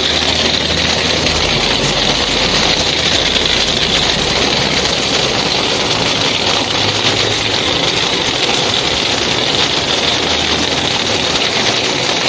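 A vehicle engine running steadily, with a low hum under a loud, even rushing noise.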